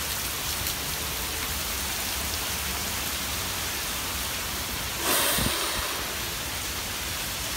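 Heavy rain pouring down steadily in a downpour, with water streaming off the edge of the porch roof. About five seconds in there is a brief louder rush.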